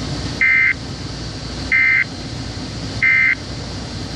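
Three short digital SAME data bursts from a weather radio broadcast, each a buzzy two-tone warble about a third of a second long, about a second apart, over steady static hiss. Their length marks them as the end-of-message code that closes the weekly test.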